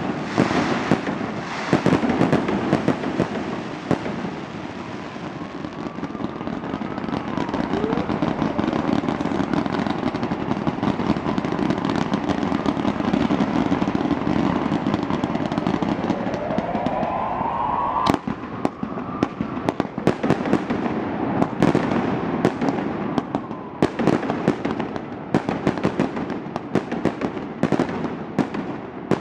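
Fireworks display going off continuously with bangs and crackling. Rising whistles come about 8 seconds in and again just before a sharp bang about 18 seconds in, after which the cracks come thick and fast.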